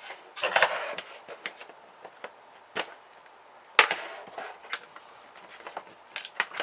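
Plastic parts of a pH meter clicking and knocking as it is taken apart by hand: a short scraping rattle about half a second in, one sharp click near four seconds, and scattered small taps.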